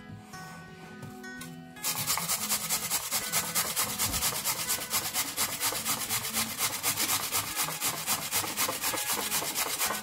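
A peeled raw potato being rubbed back and forth on a flat stainless-steel grater, shredding it. The rasping strokes start about two seconds in and go on steadily, about four a second, with soft acoustic guitar music before them.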